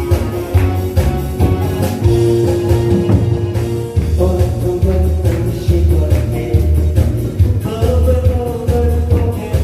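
Upbeat song accompaniment with a steady drum beat and held melody notes, with a singing voice over it.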